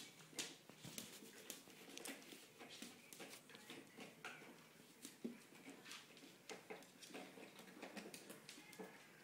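Faint, irregular clicking and pattering of Welsh terrier puppies' claws on a laminate floor as they scamper about.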